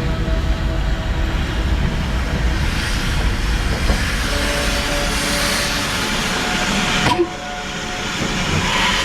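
Steam locomotive standing in the yard: a low rumble with steam hissing. The sound drops suddenly about seven seconds in, then a hiss of steam swells near the end.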